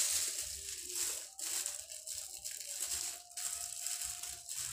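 Thin plastic bag crinkling as it is handled and squeezed by hand, with a couple of sharp clicks.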